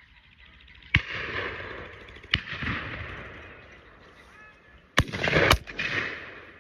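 Four shotgun shots with a rolling echo after each: two about a second and a half apart, then a quicker pair about half a second apart near the end.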